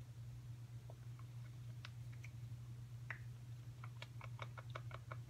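Plastic spatula stirring thick lip gloss gel in a small plastic cup, clicking lightly against the cup. A few scattered clicks give way near the end to a quick run of about six or seven a second, over a steady low hum.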